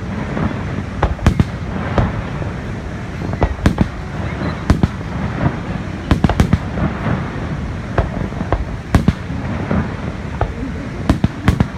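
Fireworks display: an irregular series of sharp bangs, some in quick clusters of two or three, over a steady low rumble.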